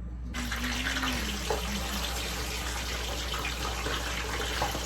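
Potatoes frying in hot oil: a steady sizzling hiss that starts suddenly just after the start.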